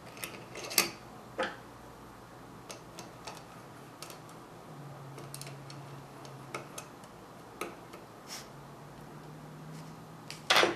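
Small metal clicks and taps of Weber 42 DCNF carburettor parts being handled and fitted as the main jet assemblies are installed, with a sharper click near the end.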